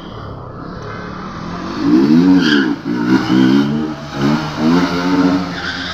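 Motorcycle engine revved up and down several times from about two seconds in, over a lower steady engine rumble.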